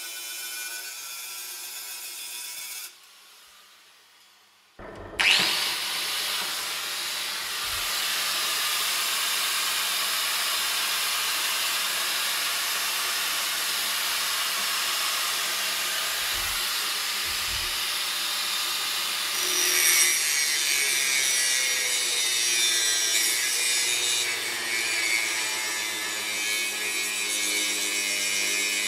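Angle grinder grinding down the steel VANOS gear of an M54 intake camshaft while the gear spins in a bench drill's chuck, shortening the gear by 5 mm. The grinding is a steady, loud hiss over a motor whine. It drops away for about two seconds near the start, then comes back and grows harsher near the end.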